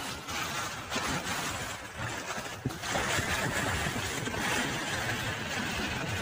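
Sea waves washing and splashing against rocks: a steady rushing noise that swells and eases.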